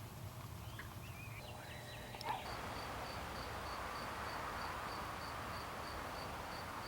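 Outdoor woodland ambience: a few faint bird chirps, then a thin high-pitched chirp repeating evenly about three times a second over a soft steady hiss.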